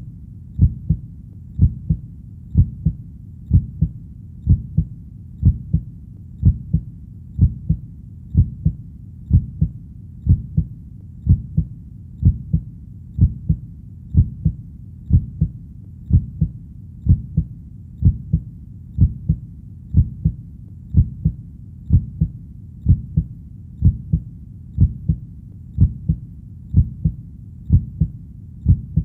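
Heartbeat sound: a steady lub-dub double thump repeating at an even pace of about one beat a second, low and dull.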